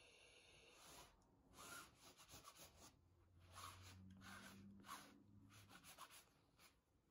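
Faint rolling and peeling of a sticky lint roller drawn over fabric trousers, in a series of short strokes about one or two a second.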